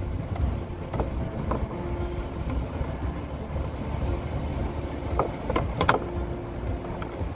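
A few light plastic knocks and clicks from the glove box being handled in the dash opening, the loudest a little before the end, over a steady low rumble.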